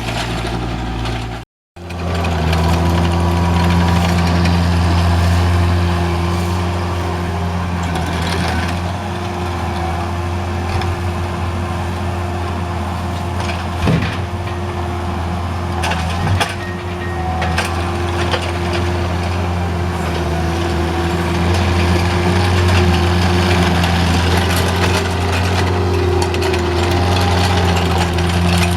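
A large engine running steadily at an even speed, with a sharp knock about halfway through and another a couple of seconds later. The sound cuts out abruptly for a moment about a second and a half in.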